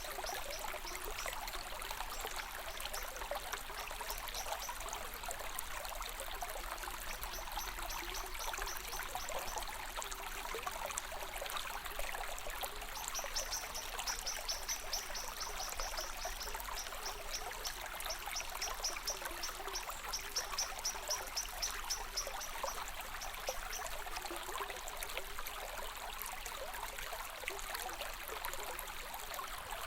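A small stream trickling and splashing steadily. A high chirping in quick pulses comes and goes above it, strongest in the middle stretch.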